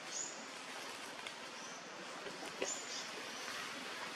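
Forest ambience: a steady hiss with short, high, whistled bird calls at the start and again a little past halfway, and a couple of brief sharp clicks.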